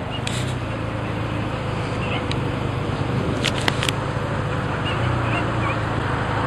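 Vehicle engines idling at an intersection, a steady low hum with traffic noise, heard from inside a car. A few sharp clicks come just past the middle.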